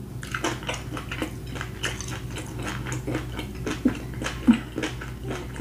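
Close-miked chewing of a mouthful of grilled barbecue beef rib: a run of many small, irregular mouth clicks.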